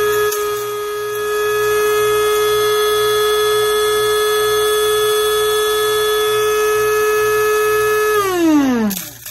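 Coffee maker's electric motor running with a steady high whine, then winding down fast near the end, its pitch falling away as it spins down.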